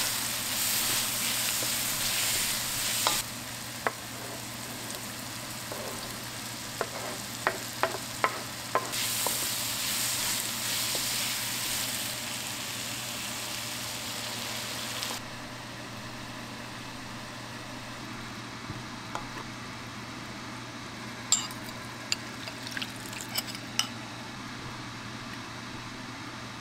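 Vegetables and tofu sizzling in a hot wok while a wooden spoon stirs them, knocking and scraping against the pan. The sizzle is loud at the start and again in the middle, then drops off abruptly at about 15 s, with a quick run of knocks around 7 to 9 s and a few more clicks near the end.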